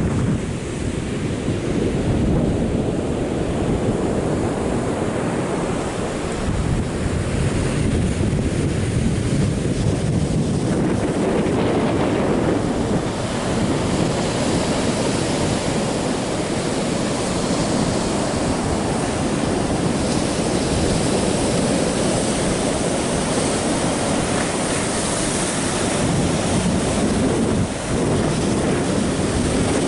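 Surf breaking and washing up a sandy beach, with strong wind buffeting the microphone in a steady low rumble. The hiss of the surf comes up stronger after about ten seconds.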